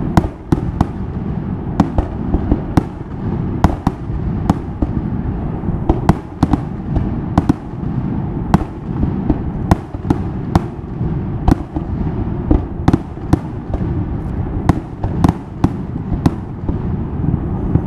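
Fireworks display: aerial shells bursting in an irregular series of sharp bangs, about one or two a second, over a steady low rumble.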